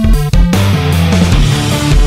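Loud background music: a heavy, driving rock track with distorted guitar, bass and drums.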